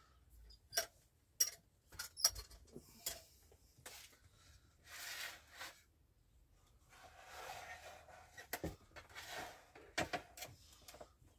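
Knocks and clicks of things being picked up and set down on a counter, with two stretches of scraping as a plastic mess tray and a metal mess tray are slid into place side by side.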